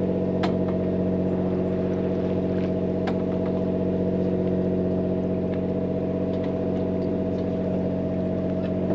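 Charter fishing boat's engine running steadily, an even hum. Two short, sharp clicks come through it, about half a second in and about three seconds in.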